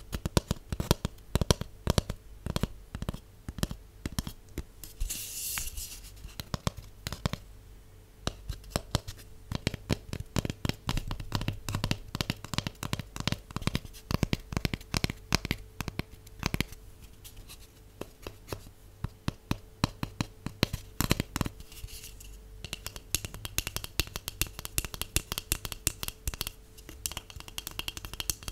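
Long fingernails tapping rapidly on a cardboard tube: a dense run of light clicks, with scratchier stretches about five seconds in and again in the last several seconds.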